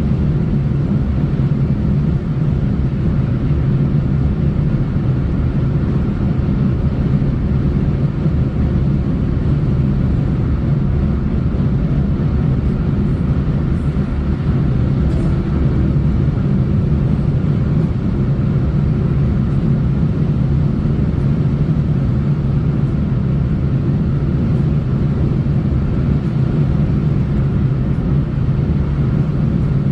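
Steady low rumble of a vehicle driving along a road, with tyre and engine noise that holds even throughout.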